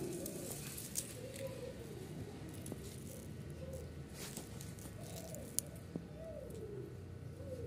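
A pigeon cooing: soft, low coos that rise and fall, repeated about once a second, with a few faint clicks in the background.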